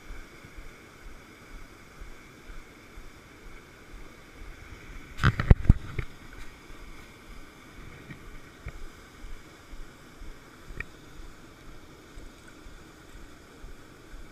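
Steady rushing of a mountain stream and small cascade, with a brief clatter of several sharp knocks about five seconds in.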